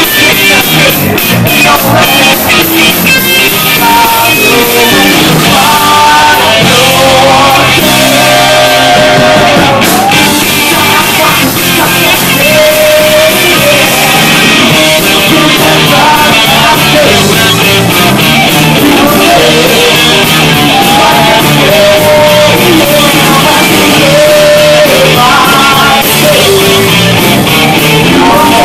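Live rock band playing loudly: a male lead vocalist singing over electric guitar and a Nord Electro 2 keyboard.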